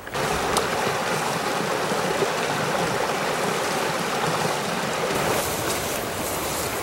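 Small mountain creek rushing steadily over rocks, cutting in suddenly, with a few sharp clicks on top.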